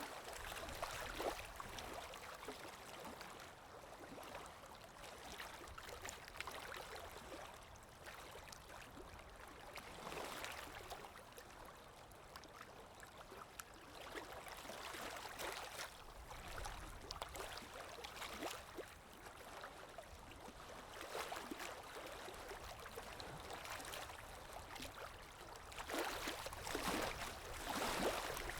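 Water lapping in small irregular splashes every few seconds, the strongest cluster near the end, over a steady low wind rumble.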